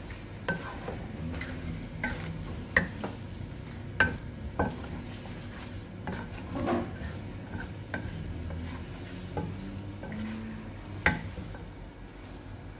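A spatula stirring chicken necks in spiced tomato masala in a metal karahi, scraping and knocking sharply against the pan again and again, over a low sizzle of the masala frying.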